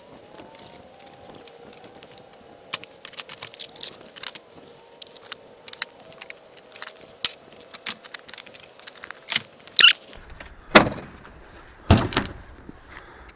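Gear being packed up by hand: a run of small clicks, rattles and knocks, then three louder thumps near the end.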